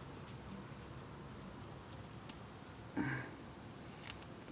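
Faint outdoor ambience with short, high insect chirps repeating about once a second, and one brief louder sound about three seconds in.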